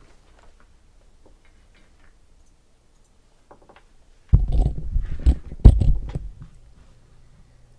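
Faint scattered clicks, then about four seconds in a loud cluster of heavy knocks and rumbling handling noise lasting about two seconds, as a person moves and reaches around at a desk close to the microphone.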